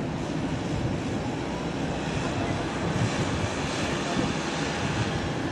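Boeing 737-800's CFM56-7B turbofan engines running at taxi power as the airliner rolls along the taxiway, a steady distant rumble with a hiss above it.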